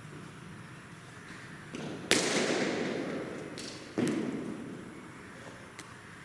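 A cricket bat strikes a ball with a sharp crack about two seconds in, and the crack rings on in an echo. A softer knock comes just before it, and a second loud knock follows about two seconds later.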